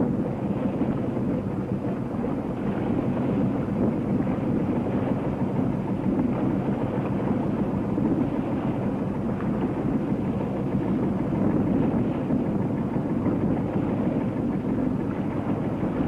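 A wooden Greek caique under way at sea: a steady, unchanging drone of the boat's engine mixed with wind noise.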